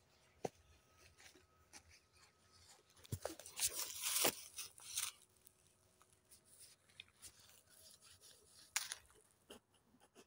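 Footsteps crunching and rustling on dry fallen leaves, in scattered steps with a louder burst of rustling about four seconds in and a sharp crunch near nine seconds.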